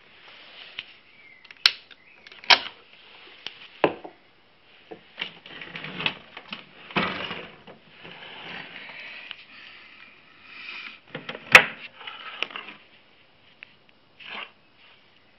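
Handling noise: scattered sharp clicks and knocks, the loudest near the end, with rustling between them.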